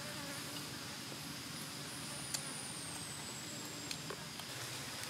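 Insects buzzing: a fly's low drone in the first second over a steady high insect hum, with two sharp clicks about two and a half and four seconds in.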